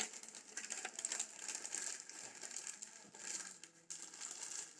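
Faint, irregular crinkling of the wrapper of a liquor-filled chocolate as it is handled.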